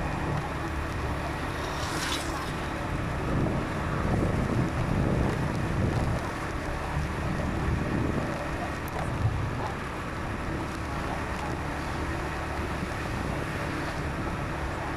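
Steady road and wind noise from a moving vehicle, with wind buffeting the microphone and a low rumble throughout; a brief hiss about two seconds in.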